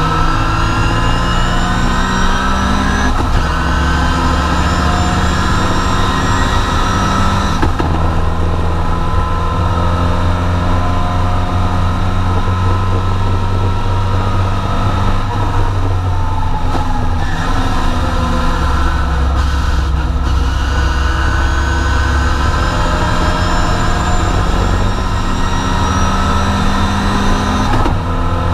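Triumph TR4 race car's four-cylinder engine at full throttle, heard from inside the cockpit: the engine note climbs in pitch through each gear and drops back at shifts about three and eight seconds in. Around fifteen to seventeen seconds in it lifts off and changes down, then climbs again to another shift near the end.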